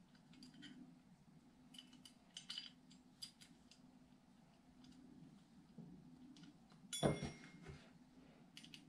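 Faint clicks and clinks of small screws, parts and a hand tool being handled while a screw is tightened on a flight-simulator collective arm, with a louder knock about seven seconds in, over a faint steady hum.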